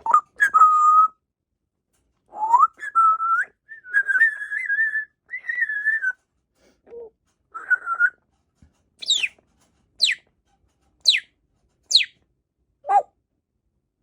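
African grey parrot whistling: a string of held whistled notes that climb a little in pitch, then four quick, high whistles falling steeply, about a second apart, and a lower falling one near the end.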